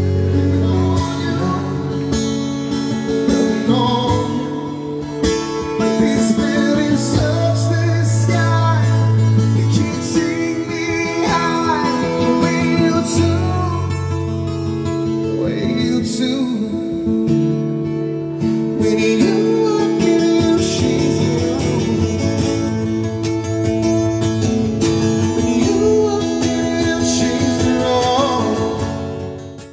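Live acoustic music: a man singing over a strummed acoustic guitar, with a cajón keeping the beat. It fades out at the very end.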